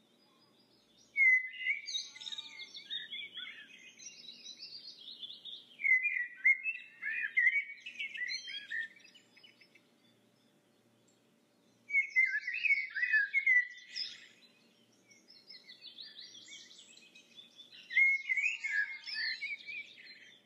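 A songbird singing in four bouts of rapid chirps and trills, each a few seconds long with short pauses between.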